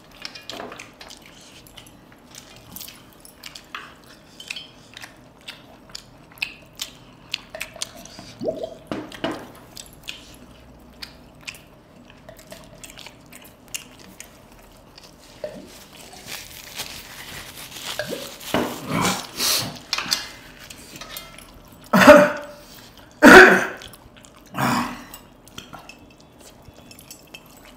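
People eating curry and chicken with their hands from steel plates: wet chewing and lip-smacking with many small clicks, and three loud short sounds a few seconds before the end.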